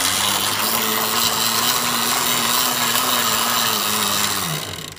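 An e-bike's 250-watt motor and chain drive spinning at full throttle with a loud, steady whirr. The motor is working as a generator, putting out about 14 amps. The pitch drops and the whirr stops about four and a half seconds in as the wheel is let run down.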